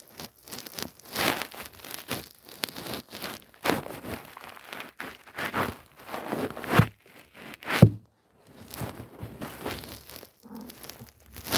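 Irregular rustling and scraping in short bursts, with two louder thuds about a second apart near the middle.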